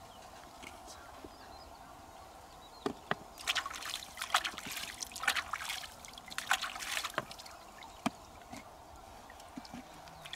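Hands splashing and sloshing in shallow water, with sharp clicks among the splashes, bunched between about three and seven seconds in. A faint steady hiss runs underneath.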